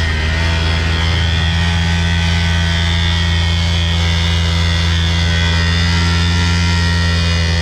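Small 49cc air-cooled single-cylinder two-stroke engine of a mini dirt bike, running steadily while the bike is ridden: a loud, steady low drone.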